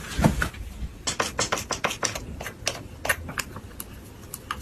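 A door being opened, with a couple of low knocks as the handle is worked. About a second in comes a quick, irregular run of light clicks and scrapes from small items being handled.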